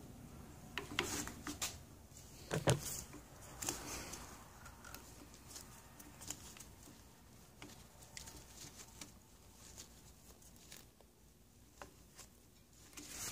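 Faint, scattered clicks and scrapes of a plastic outboard water pump housing being worked down over the driveshaft and rubber impeller onto the lower unit gear case, with a few louder knocks in the first four seconds.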